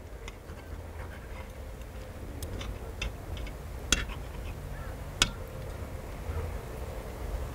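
Metal forks and knives clicking and scraping against a cast-iron cauldron-lid griddle while cutting hamburger steaks: scattered light ticks, with two sharper clinks about a second apart near the middle.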